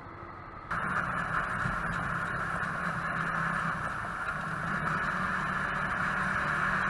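Steady riding noise of a Yamaha YZF-R15 motorcycle on the move: engine hum under a constant rush of air, starting abruptly about a second in.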